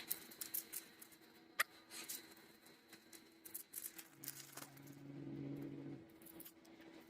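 Faint scattered clicks and rustles of Velcro scraps being handled and dropped into a storage container, with one sharper click a little over a second in. A low hum sounds for about two seconds past the middle.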